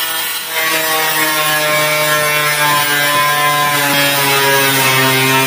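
Handheld angle grinder with a cutting disc running and cutting galvanized steel deck sheet: a steady motor whine with a metallic grinding hiss, starting about half a second in, its pitch dropping a little partway through as the disc bites in.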